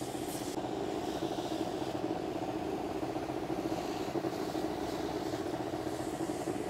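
Engine of a motorized crop sprayer running steadily with a fast flutter while the trees are sprayed.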